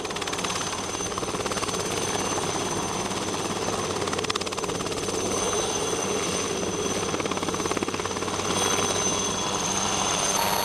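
Helicopter hovering low overhead with a fertiliser spreader bin slung beneath it: fast, steady rotor chop with a constant high whine over it.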